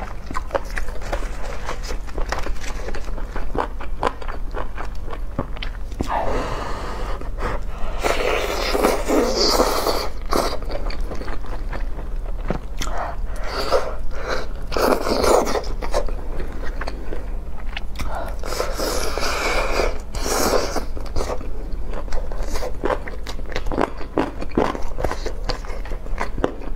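Close-miked eating of a whole roast chicken: gloved hands tear the meat apart while the eater chews and smacks her lips, making many small wet clicks. Louder stretches of tearing and rustling come about six, thirteen and nineteen seconds in. A steady low hum runs underneath.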